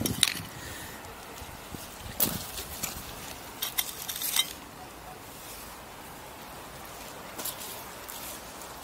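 Small hand trowel scraping and clicking among river pebbles and broken glass: a handful of sharp clicks and scrapes, mostly in the first half, over a steady outdoor hiss.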